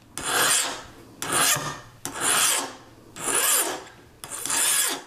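Hand file rasping across the top of a black-oxide-coated Foredom anvil point, five even strokes about one a second, rounding the top into an arc.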